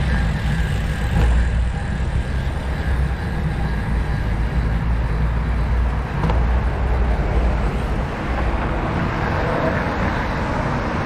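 Wind rumbling steadily on a riding camera's microphone, with road and passing-traffic noise.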